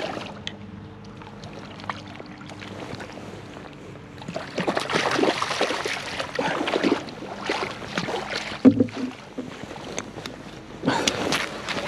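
A hooked trout thrashing and splashing at the water's surface as it is scooped into a landing net, in heavy bursts with a sharp knock about two-thirds of the way through.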